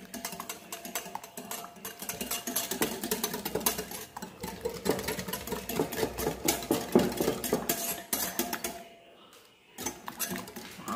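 Wire whisk beating eggs and butter in a glass bowl: a rapid, continuous clatter of the metal wires striking the glass. It stops about nine seconds in, with one short burst of whisking just before the end.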